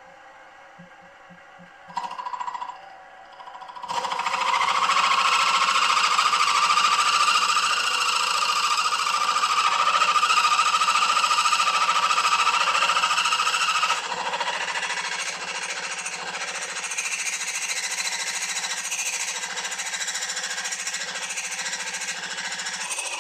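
Milling machine boring the 1 3/8-inch high-pressure cylinder of a cast-iron model cylinder block. After a short sound about two seconds in, the boring head starts cutting at about four seconds, a loud, steady metal-cutting noise that eases slightly at about fourteen seconds; this is the first cut of the bore.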